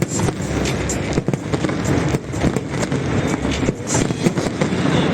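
Aerial fireworks going off in a dense, irregular run of bangs and crackles.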